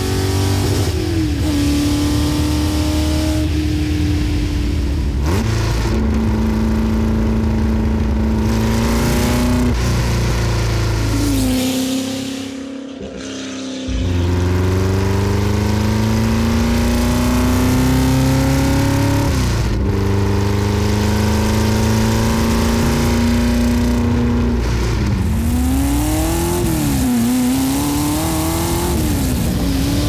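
Ford GT40's straight-piped V8 under hard acceleration. Its pitch climbs steadily and drops back sharply several times as it shifts up through the gears. It goes quieter for about two seconds midway, then pulls again, and near the end the revs rise and fall quickly a few times.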